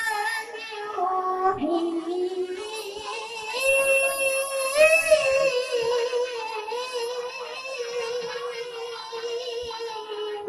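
A child's voice reciting the Quran in the melodic tilawah style, drawing out long held notes with wavering ornaments. The pitch climbs and grows louder about four seconds in, then settles into one long held note.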